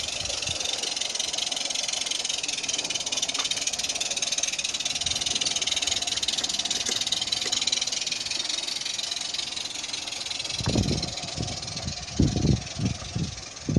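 A 16mm-scale live-steam Decauville 0-4-0 garden-railway locomotive running under steam, a steady hissing. From about ten and a half seconds in, irregular low thumps and rumbles join it.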